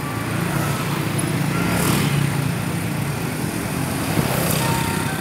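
Toyota Grand Avanza's 1.3-litre four-cylinder petrol engine idling steadily, heard through the open bonnet.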